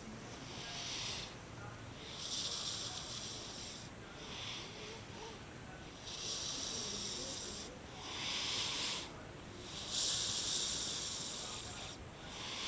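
Baby snoring: a hissing, airy sound with each breath, about one breath every two seconds, some longer than others.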